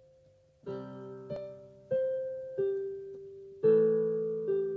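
Slow, gentle piano intro music: single notes and chords struck about once a second, each left to ring and fade before the next.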